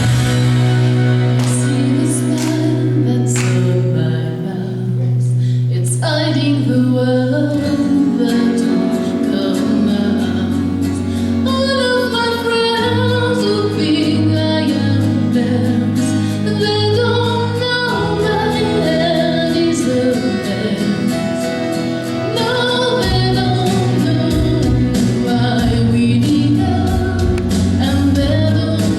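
A woman singing a song with instrumental accompaniment; the first few seconds are accompaniment alone, and the voice comes in about six seconds in.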